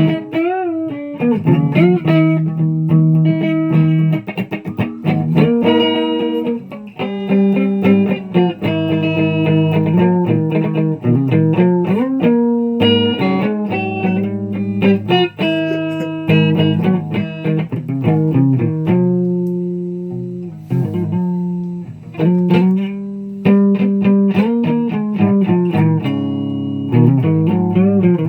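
Guitar playing a melody of plucked single notes and short phrases, some notes bent or held with vibrato.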